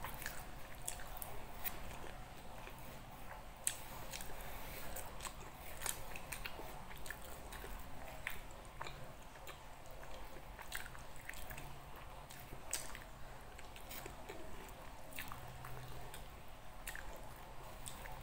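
A person chewing and eating nasi Padang (rice with rendang), with irregular wet smacking clicks of the mouth.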